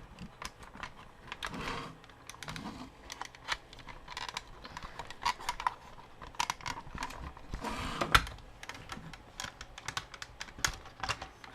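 Irregular light clicks and taps of hard plastic action-figure parts being handled and pressed together as the head is fitted back on, with a louder knock about eight seconds in.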